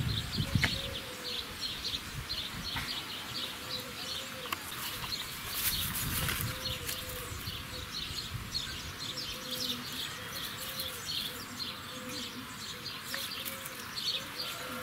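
Outdoor garden ambience: small birds chirping over and over, with an insect buzzing in short passes near the microphone.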